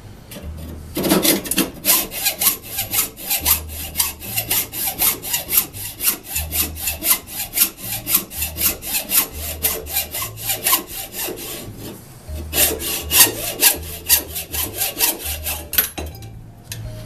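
Hand hacksaw cutting through a metal shaft, in steady back-and-forth strokes. It pauses briefly about twelve seconds in, then saws on until it stops near the end.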